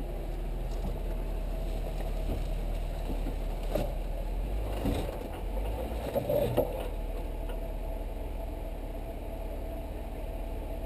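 Jeep Wrangler Rubicon's 3.6-litre Pentastar V6 running low and steady at crawling speed. A few sharp knocks and clunks come near the middle.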